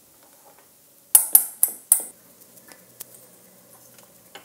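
Metal kitchen utensils clinking, about four sharp clinks with a short ring about a second in.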